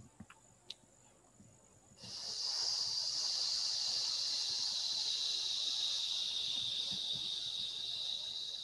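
A long, steady 'sss' hiss breathed out through the teeth, starting abruptly about two seconds in and held, its pitch sinking slightly: the qigong 'sss' breathing sound of the metal element.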